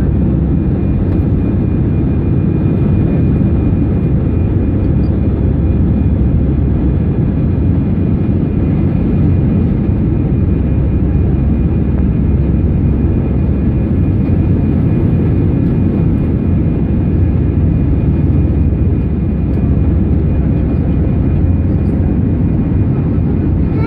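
Airbus A319 cabin noise during the climb after takeoff, heard over the wing: a loud, steady rumble of engines and airflow with a faint steady whine on top.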